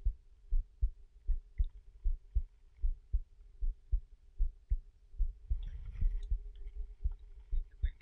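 Muffled low thumps of small waves knocking against a waterproof camera housing at the waterline, about two to three a second, over a faint steady hum.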